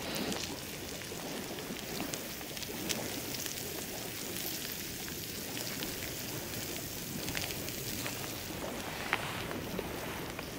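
Hot melted raclette cheese sizzling in a small skillet as it is poured onto a potato: a steady crackling hiss with scattered small ticks.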